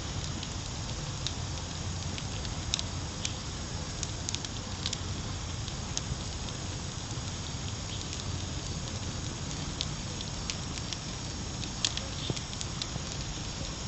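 Charcoal fire in a small grill crackling, with sharp pops scattered over a steady hiss.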